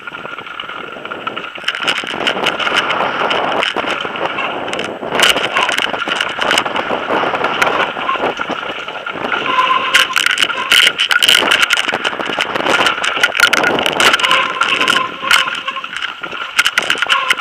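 Mountain bike, a Marin X-Trail 6.7, descending a rough, rocky forest singletrack at speed: constant clatter and knocking from the bike and its camera mount over rocks and roots, with tyre noise on gravel and some wind.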